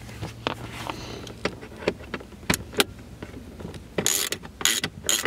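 Irregular sharp clicks and snaps with short scraping rustles, the sound of hands working on the truck's plastic interior parts. A low steady hum sits under the first second or so.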